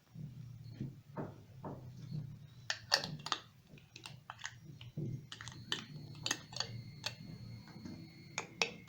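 Irregular run of small clicks and clinks as a jar is handled, starting about three seconds in, some with a brief high ring, over a faint low hum.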